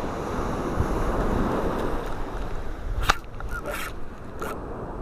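Steady rush of ocean surf on the beach, mixed with wind on the microphone. About three seconds in there is one sharp click, followed by a few short hissy scrapes.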